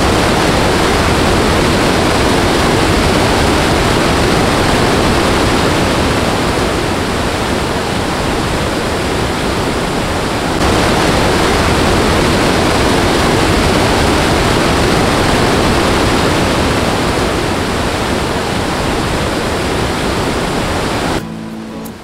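Rushing water of a tall waterfall, a loud steady roar. A cut about ten and a half seconds in makes it slightly louder, and it drops away shortly before the end.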